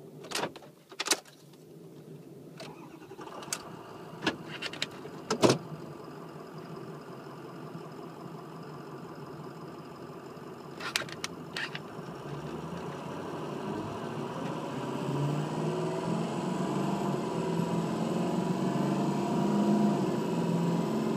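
Ford 6.0 Power Stroke V8 turbo diesel heard from inside the cab: a few sharp clicks, then the engine starts and idles, and from about halfway through it accelerates hard, rising steadily in pitch and level as the turbo builds boost. This is a road test of the variable-geometry turbo, freshly fitted with a new unison ring after its vanes were sticking and setting a P0299 low-boost code.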